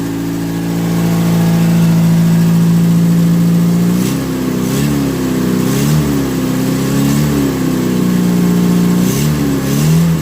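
Renault 10's freshly rebuilt four-cylinder engine idling steadily, then blipped repeatedly from about four seconds in, the pitch rising and falling roughly once a second. There is a slight exhaust blow, put down to an unsorted flange on the downpipe.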